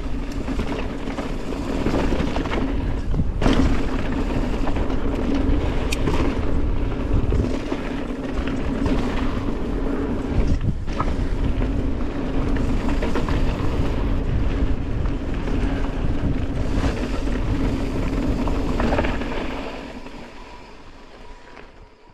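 Mountain bike descending a dry dirt trail: steady wind buffeting on the microphone over tyre roar and drivetrain and suspension rattle, with a few sharp knocks from the bike. The sound fades out near the end.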